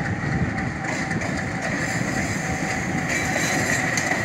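ALCO 251-engined diesel-electric locomotive GRU-20-5002 running as it pulls an arriving passenger train past close by, with wheels rolling over the rails. A steady high whine sits over the engine noise.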